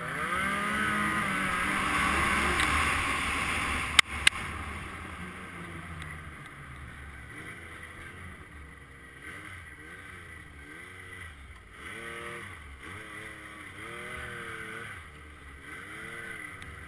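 Yamaha RS Rage snowmobile's three-cylinder four-stroke engine revving up and down through deep snow, over a loud rushing noise of track and snow spray in the first few seconds. Two sharp knocks come about four seconds in, the loudest sounds here; after that the rushing drops away and the engine's pitch keeps rising and falling with the throttle.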